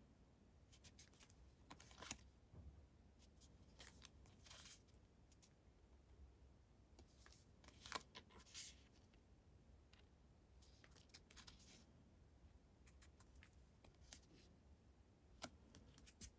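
Faint, scattered rustles and light clicks of LEGO blind-box packaging and minifigure pieces being handled.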